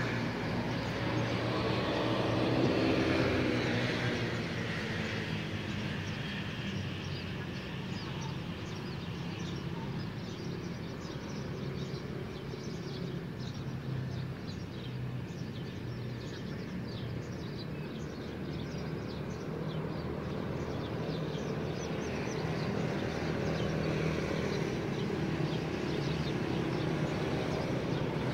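Steady city traffic noise, with a vehicle passing by in the first few seconds, its sound falling in pitch as it goes. From about eight seconds in, many short high chirps sound over the traffic until near the end.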